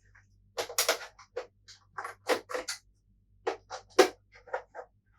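Irregular clicks and clacks of hard plastic and metal parts of a PS4 Pro being handled and lifted during disassembly, with the loudest knock about four seconds in.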